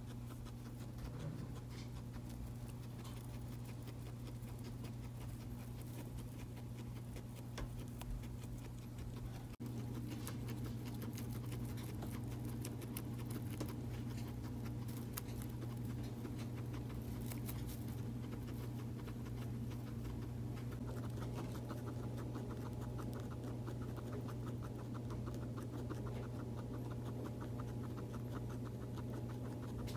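Guinea pig chewing hay, a rapid crunching of dry stalks that is most distinct in the last third, over a steady low hum.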